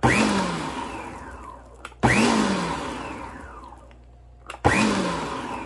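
Electric stand mixer with a dough hook pulsed three times, each short burst of motor starting abruptly and then winding down with a falling pitch, mixing yeast into a wet flour sponge for bread dough.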